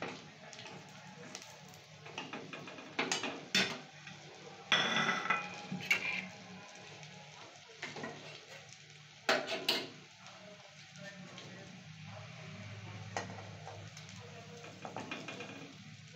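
Coconut fritters sizzling in shallow oil in a steel wok, with a metal spatula scraping and clinking against the pan as they are turned and pressed. Several sharp clinks and scrapes a few seconds apart, the longest about five seconds in.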